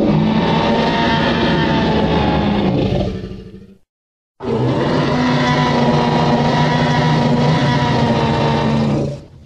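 Two long, deep creature roar sound effects in the style of the Jurassic Park T. rex, with a short silence between them. The first fades out after about three seconds; the second starts abruptly and stops near the end.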